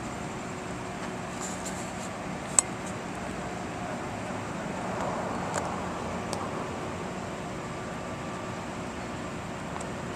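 Steady hum of idling vehicles and street noise, with one sharp click about two and a half seconds in and a couple of fainter clicks a few seconds later.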